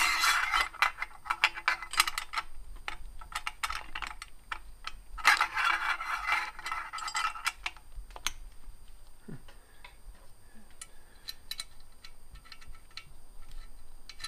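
Plastic wrapping rustling and light metal clicks as a stainless steel exhaust header is fitted to a motorcycle's cylinder head and its flange nuts are started by hand. There are two spells of louder rustling, at the start and about five seconds in, then only scattered small clicks.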